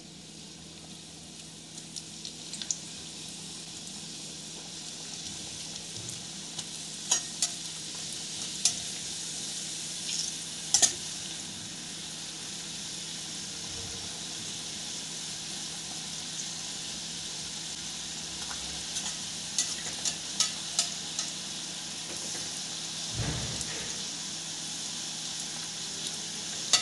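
Momos (plain-flour dumplings) deep-frying in oil in an aluminium kadhai on a low flame: a steady sizzle and bubbling that fills out as the dumplings settle in. A few sharp clicks and taps of metal on the pan stand out over it now and then, and a dull thump comes near the end.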